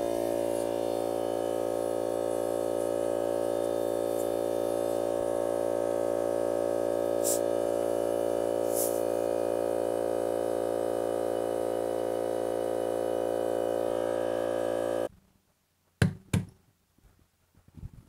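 DeWalt 60V cordless air compressor running steadily, inflating a freshly patched car tire, then cutting off suddenly about 15 seconds in. Two sharp knocks follow about a second later.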